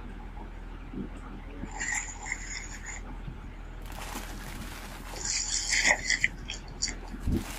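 Amazon shipping package being opened by hand: packing tape pulled off and cardboard or plastic mailer torn, in two high-pitched stretches with rustling between them and a couple of knocks near the end. A steady low mains hum runs underneath.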